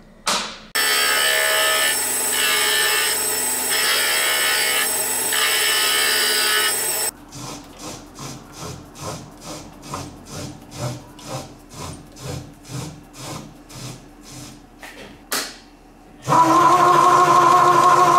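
Small metal lathe cutting a cast aluminium part: a loud, steady, hissing cut, then a quieter stretch of rhythmic pulses about twice a second. About sixteen seconds in, a louder, steady, humming run starts as a knurling tool rolls against the spinning part.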